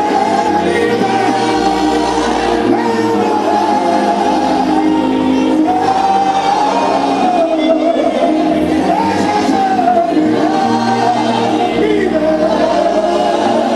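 Live gospel music: a voice sings a melody into a microphone over a band. Sustained chords and a bass line change note every second or two.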